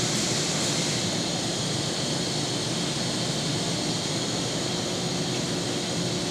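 Steady machinery drone: an even hiss over a constant low hum, with no change or break.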